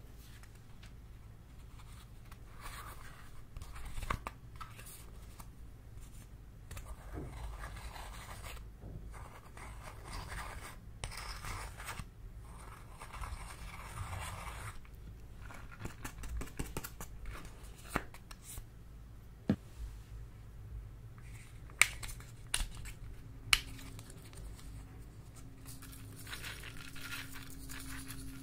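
Pressed eyeshadow being scraped and crumbled out of a makeup palette's pans with a small tool: scratchy scraping in spells, with a few sharp clicks in the second half.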